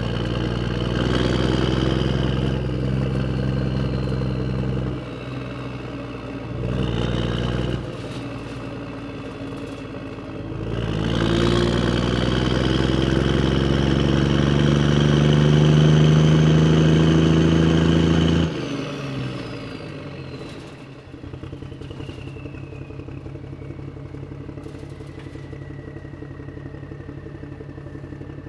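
Motorcycle engine running, with a short rev about seven seconds in, then pulling away with its pitch rising steadily for several seconds. The loud engine sound cuts off abruptly, leaving a quieter, fast, even engine putter and a slowly falling whine.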